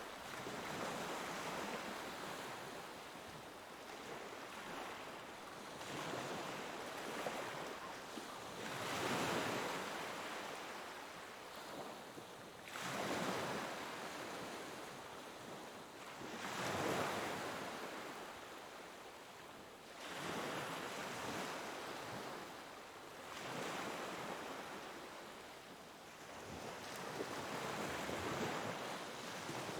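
Ocean waves breaking and washing up on a shore, each one swelling in and fading away, a new surge about every four seconds.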